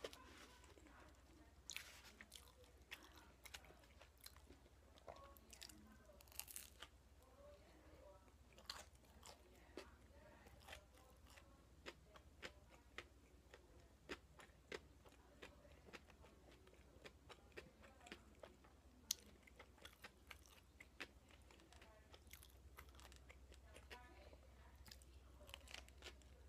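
Close-up biting and chewing of toast topped with potato salad: quiet, irregular crunches of toasted bread with wet mouth clicks.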